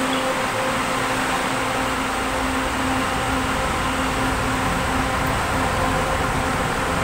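Steady hum and low rumble of an LRT Line 2 electric light-rail train at the platform, with a few fixed-pitch tones in the hum; the train is starting to pull out.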